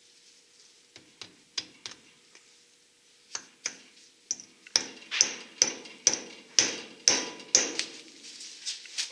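Hammer blows on metal with a ringing tail, as parts are worked on during a front disc brake conversion. Light taps come first, then a run of harder strikes at about two a second in the second half.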